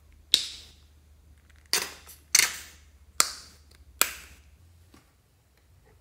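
A plastic squeeze tube of hand cream squeezed in short spurts, with five sharp sputtering pops as cream and air burst from the nozzle, each tailing off over about half a second.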